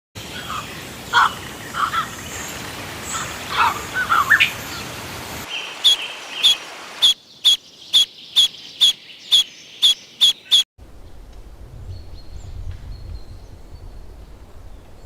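Birds chirping: scattered short calls over a noisy background, then a run of sharp, evenly repeated chirps about twice a second, ending abruptly. A quieter stretch with a low rumble follows.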